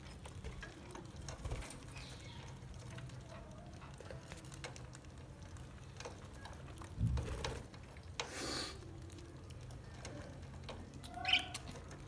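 Budgerigars chattering softly while feeding on seed, faint scattered chirps over a steady low background hum. Two short louder rustling bursts come about seven and eight and a half seconds in.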